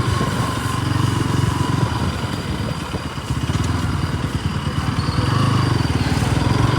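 Bajaj Pulsar NS200's single-cylinder engine running under way, a steady low engine note that eases briefly midway and then builds again.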